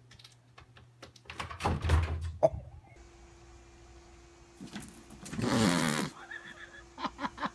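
Thumps and knocking as a cat tree's bowl perch tips over with a cat in it, ending in a sharp knock. A few seconds later comes a short, loud rushing burst lasting under a second.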